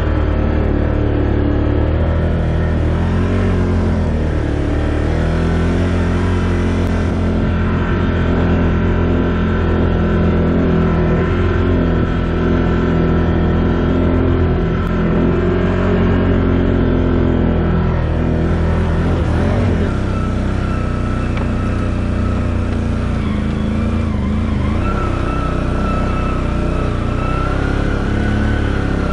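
ATV engine running steadily under way, its pitch rising and falling a little with the throttle.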